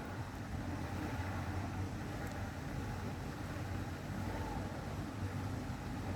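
Off-road vehicle's engine running steadily, a low even rumble with road and wind noise over it.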